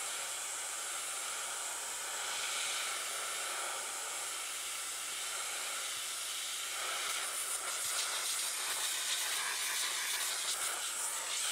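Small airbrush spraying touch-up paint: a steady hiss of compressed air and paint mist, flickering slightly in level in the second half.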